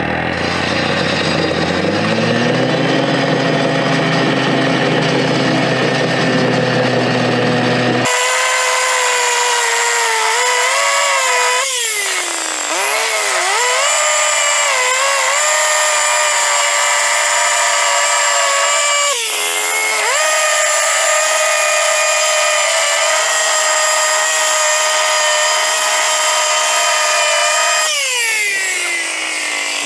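Petrol cut-off saw (disc cutter) cutting a concrete panel. It runs at lower revs, then about 8 seconds in jumps abruptly to a high-pitched full-throttle run. The pitch dips briefly twice and falls away near the end as the engine winds down.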